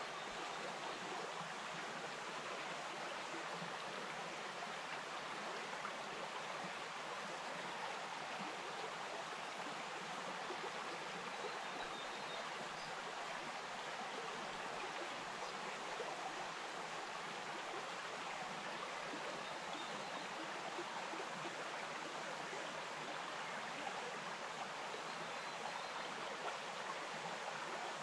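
Bush stream flowing: a steady, even rush of running water.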